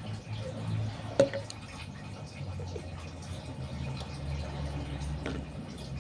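Kitchen utensils being handled while the remedy is made, with one sharp clink about a second in and a few faint taps later, over a steady low hum.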